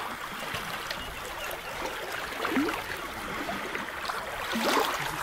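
Water trickling and lapping around a wooden punt as it is poled away from a jetty, with two brief louder sounds about two and a half and four and a half seconds in.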